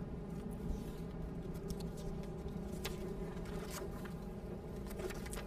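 Steady low rumble of wind on the microphone with a faint steady hum, and a few soft rustles and clicks of paper as the officiant handles his script.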